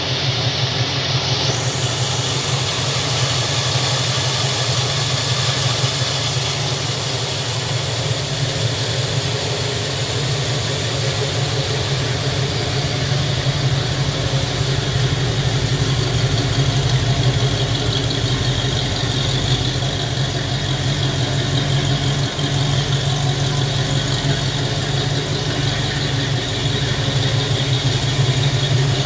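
1969 Pontiac Firebird's engine idling steadily, with an even run of firing pulses.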